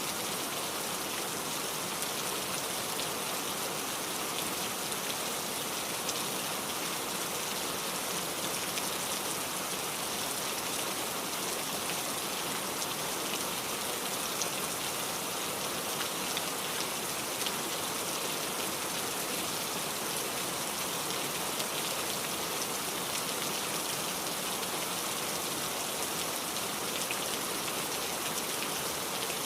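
Heavy rain falling steadily, a dense even hiss with many fine patters of drops striking a surface.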